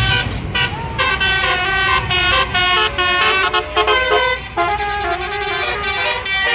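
A tour bus's basuri telolet horn playing a tune: a quick run of changing multi-tone notes with a few sliding ones, over the low rumble of passing traffic.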